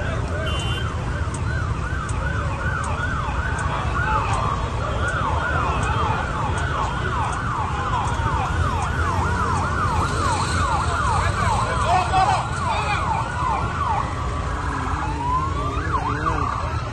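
Emergency vehicle sirens in a fast yelp, rising and falling a few times a second, over a steady low rumble; near the end a slower wail takes over.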